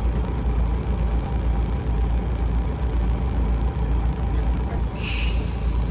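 Dive boat's engine running with a steady low rumble, and a short hiss of air about five seconds in.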